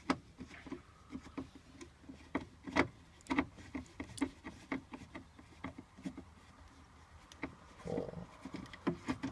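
Screws being backed out of a motorhome's plastic dash trim by hand: a run of small irregular clicks, taps and rubs from the screwdriver and trim, a few a second.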